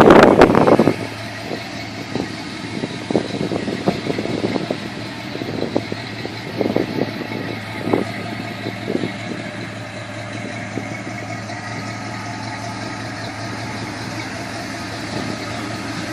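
A vehicle engine running steadily, with a loud rush of noise in the first second and scattered light knocks over the following several seconds.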